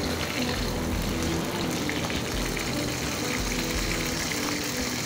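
Hot oil sizzling steadily in a wok with salted fish frying in it, over soft background music with low held notes.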